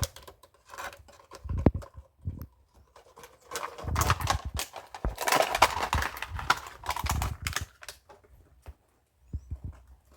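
Irregular wooden knocks and clatter of split firewood being handled and set in place on a bonfire stack, thickest in the middle, with a short pause near the end.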